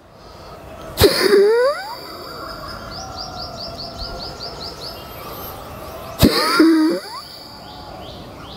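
Two forceful kapalbhati exhalations, each a sudden huff with a grunt, about five seconds apart, one with each squat. A quick run of high bird chirps sounds between them.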